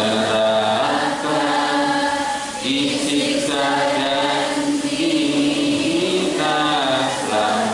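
A man singing an Islamic devotional song in a chanting style, drawing out long notes that waver and glide in pitch.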